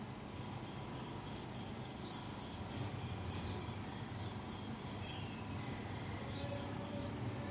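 Outdoor ambience: a steady low rumble with many faint, short bird chirps scattered throughout.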